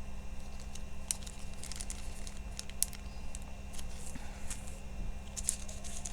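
Small plastic baggies of diamond-painting drills being handled, crinkling with scattered light clicks, over a steady low hum.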